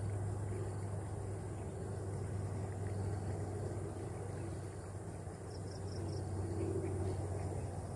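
Steady low mechanical hum, like a running engine, with four quick high chirps about five and a half seconds in.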